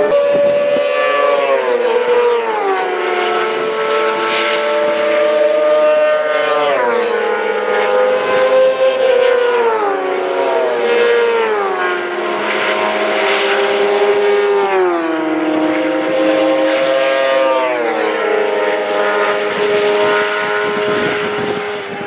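Engines of classic racing sidecar outfits running at high revs, their pitch falling in a series of steps every three to four seconds.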